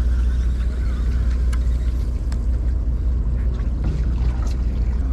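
Sportfishing boat's engine running with a steady low rumble, a few faint ticks over it.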